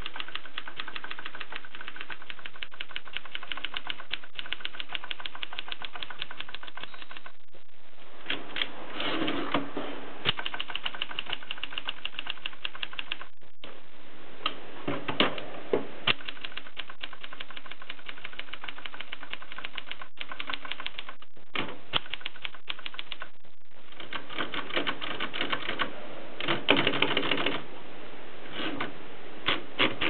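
Gossen Tippa portable typewriter being typed on: keys clacking as the typebars strike the platen. A fast, even run of keystrokes is followed, after a short pause about seven seconds in, by more uneven typing with a few louder strikes and brief pauses.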